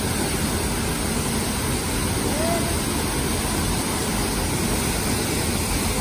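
Waterfall pouring into a rock pool in a narrow gorge: a steady, unbroken rush of falling water.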